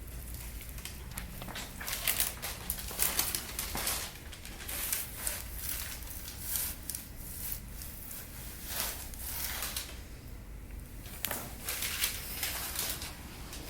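Irregular rustling and crinkling rubs from hands working over a patient on a treatment table, with one sharp click about eleven seconds in.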